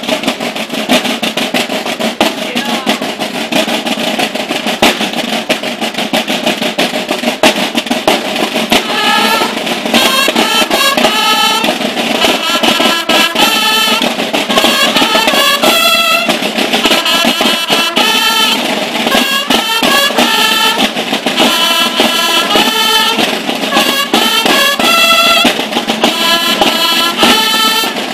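Band music: snare drums playing rapid rolls, joined about nine seconds in by brass horns playing a rhythmic melody over the drumming.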